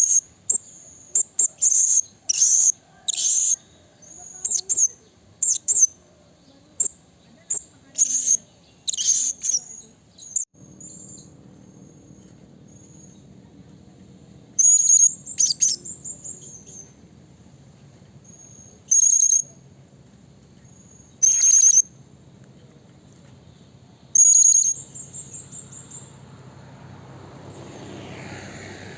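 Blue-crowned hanging parrot (serindit) calling with short, sharp, high-pitched chirps, many in quick series for about ten seconds, then sparser calls with a few longer ones. A faint low steady hum lies underneath from about ten seconds in.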